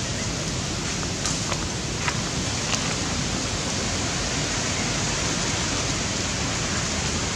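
Steady, even hiss of outdoor background noise with no animal calls, and a few faint clicks between about one and three seconds in.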